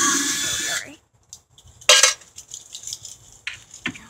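Power drill-driver whirring for just under a second as it backs a screw out of a TV's back panel, then a short burst of the motor about two seconds in and a few small clicks and clinks of the bit and screws.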